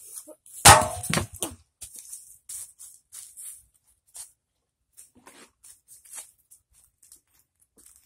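A water-filled plastic bottle is struck and knocked off a metal pot. About half a second in there is one loud crack with a short ring, followed by a couple of smaller knocks. After that come light, scattered rustles like footsteps in dry leaves.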